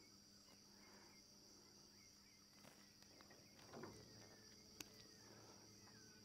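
Near silence: a faint, steady high-pitched insect drone, with faint bird chirps and a single sharp click about five seconds in.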